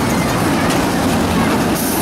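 Children's caterpillar roller coaster train rolling past on its track, a steady noisy rumble of its wheels and cars.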